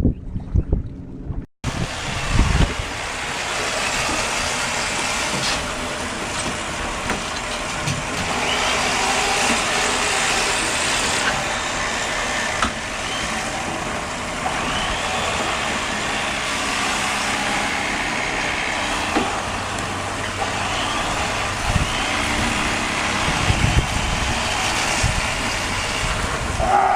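An engine running steadily under a wide rushing noise, after a brief dropout about a second and a half in, with a few low thumps.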